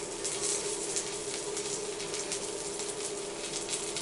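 Faint, steady sizzling of an omelette in a frying pan, with small crackles, over a steady low hum.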